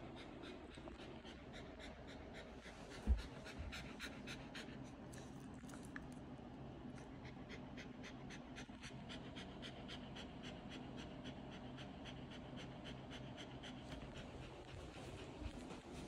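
Shiba Inu panting hard with its tongue out in a quick, even rhythm, overheated after a walk and cooling down. A single thump about three seconds in.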